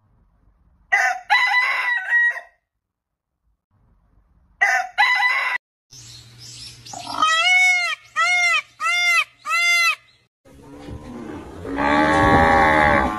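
Chickens calling in a string of short cuts: harsh pitched calls about a second in and again near five seconds, then four arched squawks in quick succession. Near the end a louder, rougher animal call sets in.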